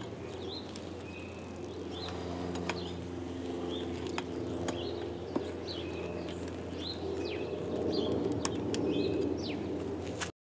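Steady low hum of the air blower feeding the charcoal kiln, with a small bird chirping again and again in short falling chirps, about one a second. A few sharp clicks come from the stirring rod against the crucible of melting aluminum.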